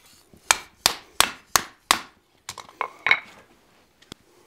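Hand hammer striking the end of a hot steel bar stood upright on the anvil, upsetting it. Five quick, evenly spaced blows come in the first two seconds, then a few lighter knocks follow.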